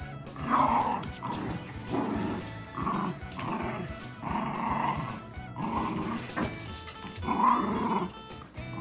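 A Shiba Inu and a Siberian husky growling in play while tugging on a toy, in a run of short growls, over background music. The growls are loudest about half a second in and again near the end.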